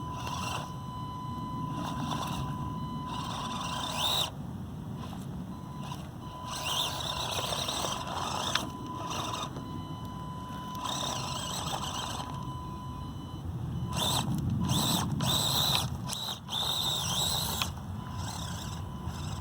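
Axial SCX24 Deadbolt micro crawler's small brushed electric motor and drivetrain whining in repeated short bursts, the pitch rising and falling with the throttle as the truck crawls.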